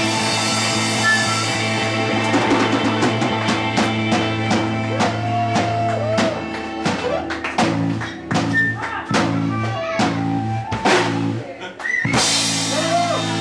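Live band playing with drum kit, accordion and flute: held chords at first, then a dense run of drum hits, a brief drop near the end and the whole band crashing back in.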